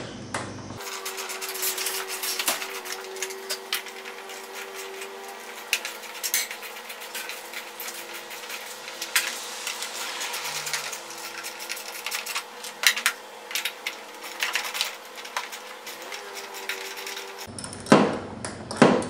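Socket wrench on 10 mm bolts: a long run of rapid clicking with small metal clinks as the scooter's floorboard bolts are loosened.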